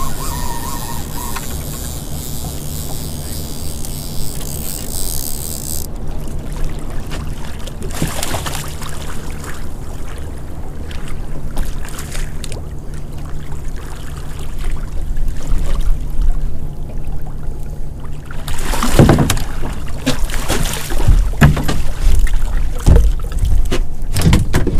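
Boat engine running steadily, with a hiss over it for the first few seconds. About three-quarters of the way through, a run of sharp knocks and thumps starts on the boat.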